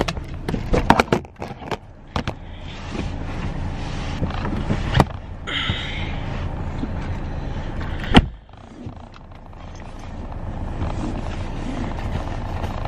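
Knocks and rustling from handling things inside a car cabin, over a steady low hum, with one sharp thump about eight seconds in.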